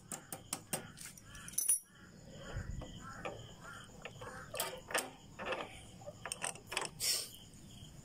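Scattered light metallic clicks and clinks as a motorcycle's gear-shift lever and linkage rod are worked loose by hand, with one sharper click about two seconds in. A faint steady insect chirring runs underneath.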